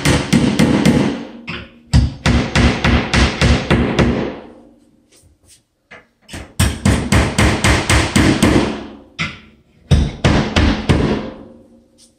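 Claw hammer tapping rapidly on wire closet-shelving hardware at the wall, about six blows a second, in four quick runs with short pauses between them.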